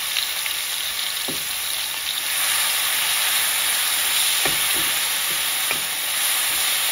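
Finely chopped onion sizzling in hot oil in a metal kadhai while a metal slotted spoon stirs it, knocking and scraping against the pan a few times. The sizzle grows louder about two seconds in.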